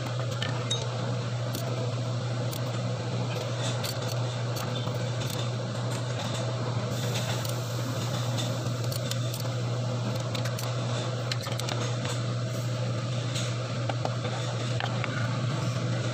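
Steady low mechanical hum, even throughout, with faint scattered clicks.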